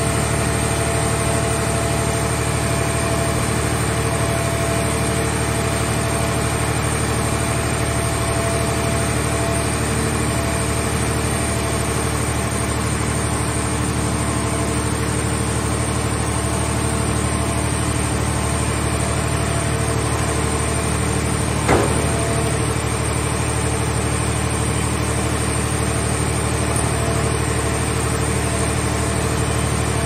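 Steady drone of the portable car-shell baler's hydraulic power unit running as its grab arm swings a wrecked car into the compression chamber. A single sharp knock cuts through about two-thirds of the way in.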